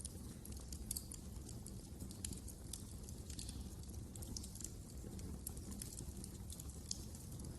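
Wood fire crackling in a fireplace: irregular sharp pops and snaps over a low steady rumble of the flames.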